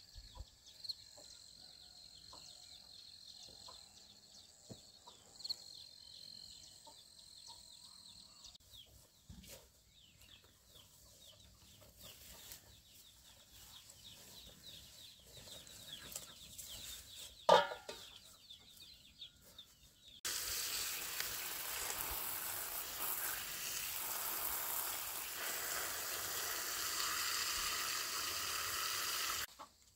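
Water gushing from a garden hose into a steel basin of clothes, a steady splashing hiss that starts suddenly about two-thirds of the way in and cuts off just before the end. Before it there is quiet outdoor ambience with a faint steady high whine at first and one short loud call a little past the middle.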